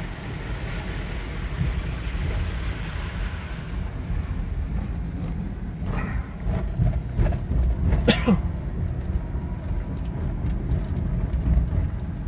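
Car cabin noise while driving: a steady low engine and road rumble, with a hiss of tyres on the flooded road that fades after about four seconds. Scattered clicks and knocks come near the middle, the loudest at about eight seconds.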